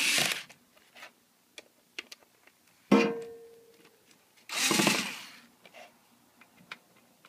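Electric screwdriver running in two short bursts, about a second each, at the start and about halfway through, finishing off screws already started in the TV's back cover. A sharp knock with a ringing tone about three seconds in.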